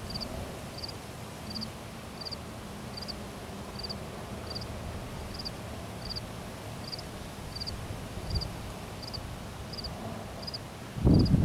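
A cricket chirping steadily, short high chirps of a few quick pulses each, about three every two seconds, over a steady low background hiss. Right at the end a loud low rumble cuts in.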